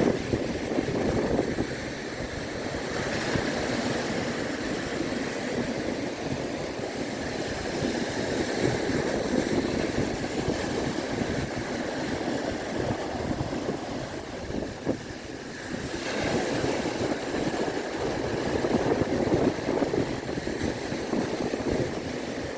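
Sea waves surging and washing onto the shore in a steady rush that swells and eases, with a louder surge near the end.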